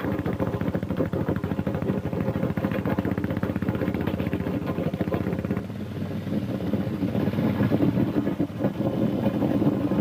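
Engine of a moving vehicle running steadily. The sound dips briefly about six seconds in and then comes back a little louder.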